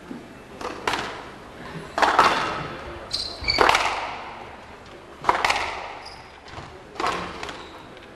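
Squash rally: the ball cracks off rackets and walls every second or two, each hit echoing around the court.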